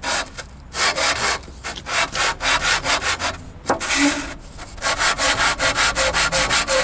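A metal fuel-filter part rubbed back and forth on sandpaper to flatten its sealing face: rapid, rhythmic rasping strokes, several a second, with a short pause and a click partway through.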